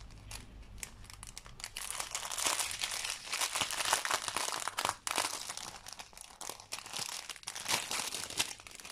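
Small plastic bags of diamond-painting rhinestones crinkling as they are handled and opened. The crinkling is irregular and gets busier about two seconds in.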